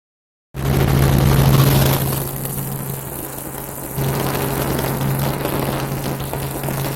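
Helicopter engine and rotor noise: a steady drone with a strong low hum. It is loudest for the first couple of seconds, drops, then grows louder again about four seconds in.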